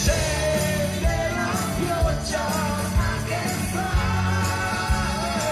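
Italian pop band playing live: a sung melody over drums, bass and electric guitar, with a steady beat.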